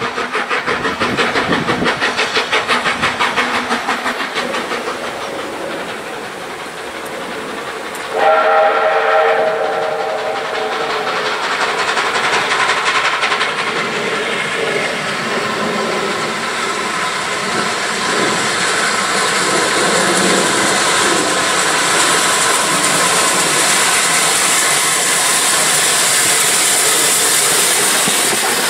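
A steam locomotive working with a run of regular exhaust beats. About eight seconds in, a steam whistle sounds several notes together for a few seconds. Then USATC S160 2-8-0 No. 5820 approaches and passes hauling coaches, its exhaust and the clatter of wheels on rail growing louder towards the end.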